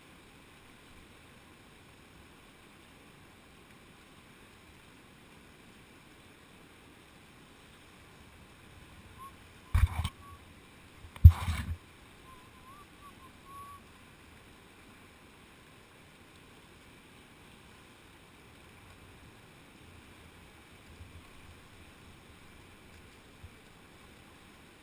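Faint, steady rush of shallow whitewater around a kayak, with two loud knocks about a second and a half apart near the middle, the second the louder.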